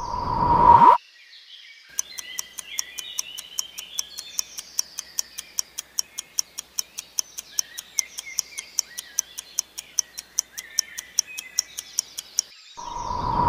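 A swelling whoosh with a ringing tone cuts off sharply about a second in. Then a clock ticks steadily over birdsong, a quiz-timer sound bed. A second swelling whoosh comes near the end.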